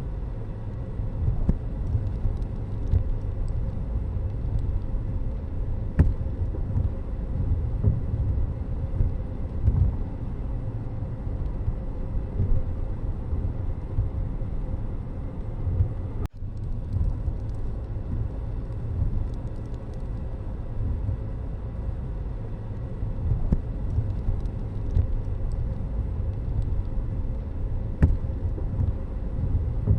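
Steady low rumble of road traffic and vehicle noise, with gusty surges and a brief break about halfway through.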